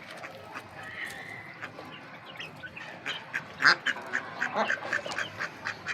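Young poultry calling: many short chirps and peeps from a group of chicks and ducklings, sparse at first and much busier from about halfway through.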